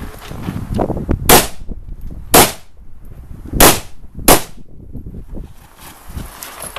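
Four shots from a semi-automatic AR-15-type rifle, fired about a second apart with the last two closer together.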